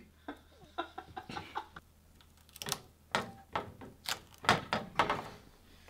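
Metal spatula scraping and tapping on a baking sheet as crisp baked tortilla chips are lifted off it: about a dozen sharp, irregular clicks and scrapes, louder and closer together in the second half.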